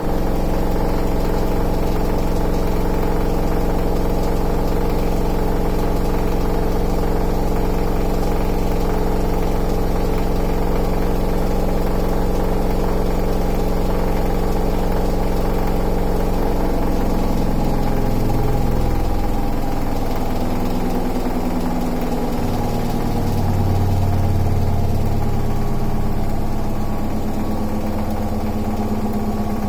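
Washing machine on its spin cycle: a steady motor hum made of several held tones. From about 17 s the tones shift and wobble in pitch as the drum speed changes.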